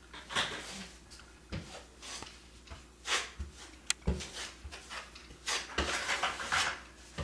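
Drywall taping knife spreading and scraping Durabond setting compound over mesh tape to fill the tape bed: a string of irregular scraping strokes, with a few short knocks in between.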